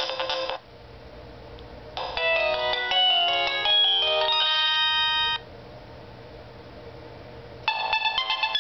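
Nokia 3220 mobile phone playing its built-in ringtones. One ringtone melody cuts off about half a second in, a short electronic tune of several notes at once plays from about two seconds to just past five, and another ringtone starts near the end.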